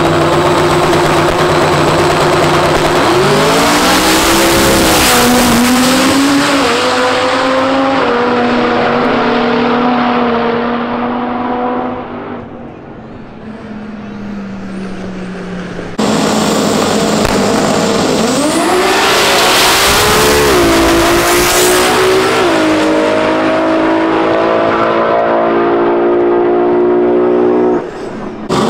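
Drag race cars launching down the strip at full throttle. The engine note climbs in pitch and drops back several times as they shift gears, then fades into the distance. After an abrupt cut, another full-throttle pass climbs through its gears the same way.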